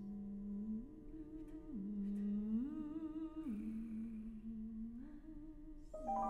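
Mezzo-soprano voice holding long, low notes, stepping up and down between two pitches with little accompaniment. Near the end a quick rising run of piano notes comes in.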